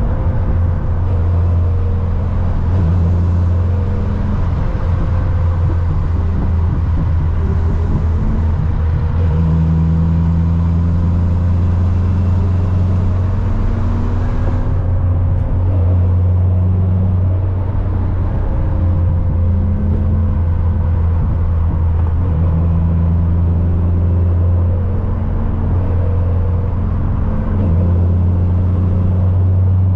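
Corvette C6's ProCharger-supercharged LS3 V8 running at a steady cruise: a continuous deep drone whose pitch drifts gently up and down with road speed.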